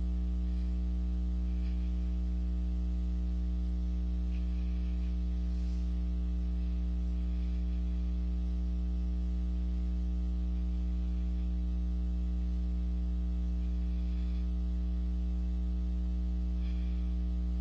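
Steady low electrical mains hum with a buzz of higher overtones.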